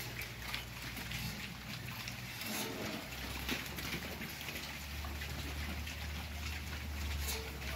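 A herd of hybrid wild boars feeding at a trough: a dense crackle of many small crunching and clicking chewing sounds over a steady low hum.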